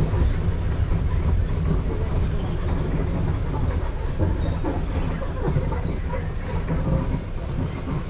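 A vehicle rolling slowly over a rough dirt track: a steady low rumble with irregular small knocks and rattles.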